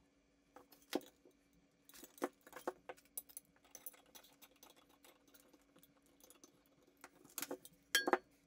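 Scattered metallic clinks and taps of faucet hardware and supply lines against a porcelain sink as a single-handle faucet is fitted, with two louder knocks near the end.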